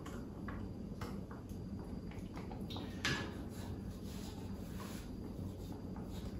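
Soft handling sounds as thin saj bread dough is laid over a hot upside-down wok: a few light taps and rustles, with one sharper rustle about three seconds in, over a steady low hum.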